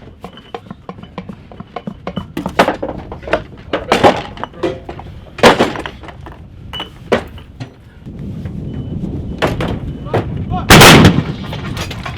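Artillery guns firing: about half a dozen sharp, loud reports a second or more apart, the loudest and longest about eleven seconds in. A steady low noise sits under the later shots.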